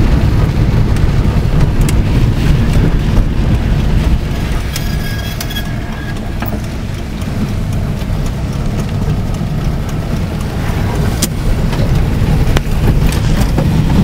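Car interior noise while driving on a wet road: a steady low rumble of engine and tyres that eases off for several seconds in the middle, with a few faint clicks.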